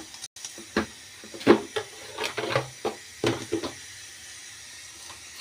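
Irregular knocks and clinks of kitchen utensils being handled at the stove, about a dozen in three and a half seconds, followed by a faint steady hiss.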